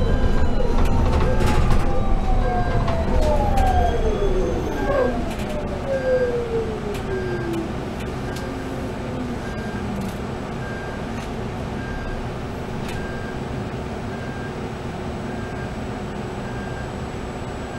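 Proterra ZX5 battery-electric bus's dual Parker Hannifin traction motors whining, falling steadily in pitch as the bus slows to a stop, with road rumble fading out about four seconds in. After that, a quieter steady hum while standing, and a short high beep repeating about once a second.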